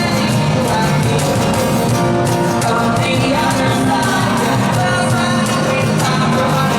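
Live rock band playing, with drums, guitars and a sung vocal line.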